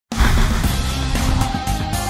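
Instrumental intro music starting abruptly, with a strong low end and sustained pitched notes.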